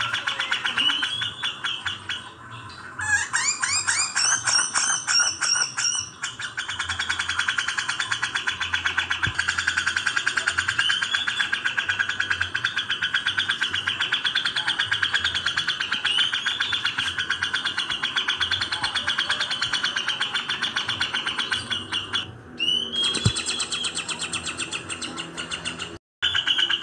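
Recorded birdsong mix of a grey-cheeked bulbul (cucak jenggot) and Eurasian tree sparrows giving their fast, scolding fighting chatter. A dense, rapid chatter runs throughout. It is broken by a few seconds of quick sweeping notes near the start and a short change about 22 seconds in, and cuts out for a split second near the end.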